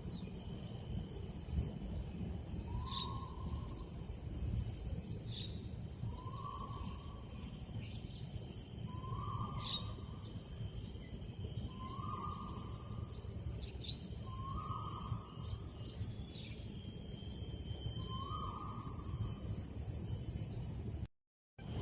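An unseen animal giving a short call six times, each note two to three seconds after the last, over continuous high chirping of small birds and a steady low rumble of background noise. The sound drops out to silence for a moment just before the end.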